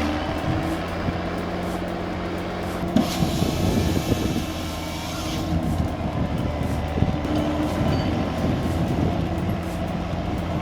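Heavy diesel engine of logging equipment running steadily, with a louder hissing rush for a couple of seconds about three seconds in.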